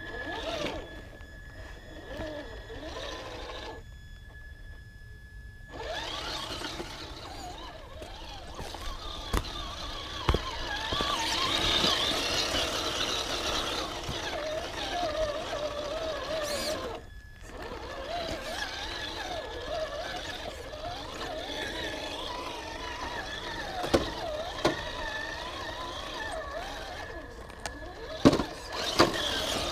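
Traxxas TRX-4 Sport RC crawler's electric motor and geared drivetrain whining, rising and falling in pitch with the throttle and pausing briefly twice. There are a few sharp knocks along the way.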